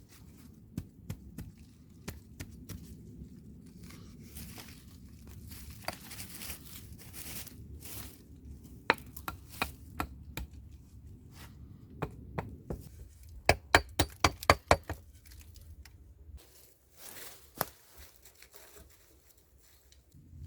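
Close handling noise: rustling and crinkling with scattered sharp clicks and knocks, and a quick run of about a dozen loud knocks around the middle.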